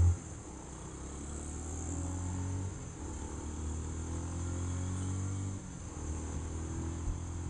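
Motorcycle engine running under way, a steady low note that dips briefly twice, about three and five and a half seconds in. A short thump right at the start.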